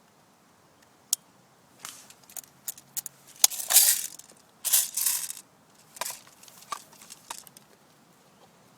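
Irregular crunching and rustling, like footsteps through dry leaves and brush, with a few sharp clicks in between; the loudest crunches come about four and five seconds in.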